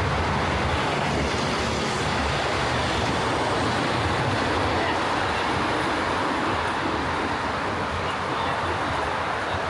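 Steady rumble of heavy city traffic, an even noise with no clear changes, a little heavier in the low end at the start.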